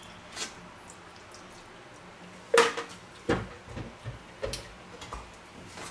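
A few short clatters and knocks of dishes being handled, the loudest about two and a half seconds in, followed by several lighter ones.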